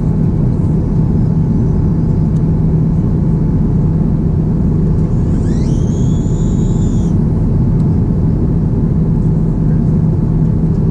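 Airbus A350-900 cabin noise in flight: the steady low rumble of its Rolls-Royce Trent XWB engines and airflow, with a constant hum. About halfway through, a brief high tone rises and then holds for about a second.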